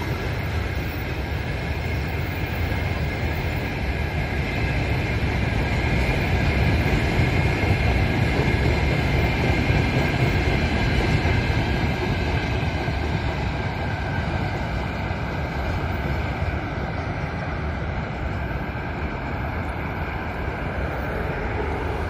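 Freight train's covered hopper wagons rolling past on the rails: a steady rolling rumble with a faint thin high whine over it, easing slightly as the last wagons go by.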